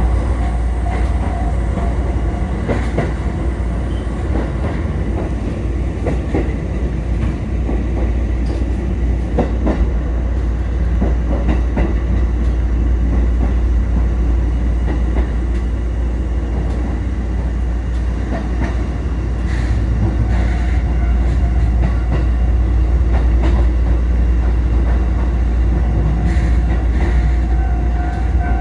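Four-car Kotoden electric train (1080 and 1100 series) running along the line: steady rumble with wheels clicking over rail joints. A thin steady whine joins in during the last third.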